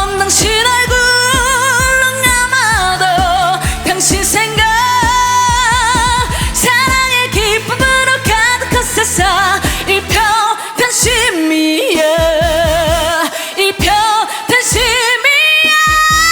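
Trot song performed live: a woman singing with vibrato over band accompaniment, ending on a long held note near the end.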